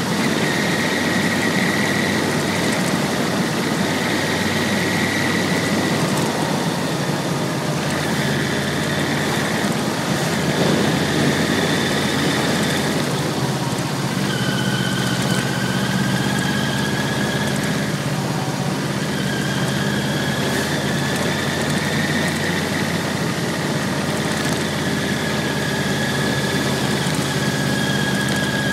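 Yamaha VMAX1200's V4 engine running steadily as the motorcycle is ridden, heard from a camera mounted on the bike, under a constant rush of wind and road noise. A thin high whine rides on top and shifts in pitch a few times.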